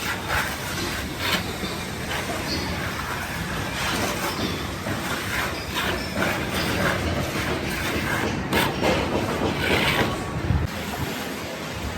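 Plastering trowel scraping and spreading plaster on a wall, an irregular run of rasping strokes.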